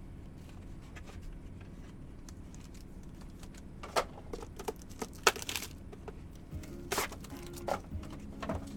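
Sports card packaging being torn open and crinkled by hand: a few short, sharp rips and rustles from about four seconds in, over faint background music.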